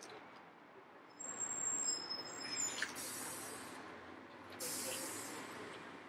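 A vehicle passing in the street. About a second in there is a thin high squeal, followed by two hissing bursts, around three seconds in and near five seconds in.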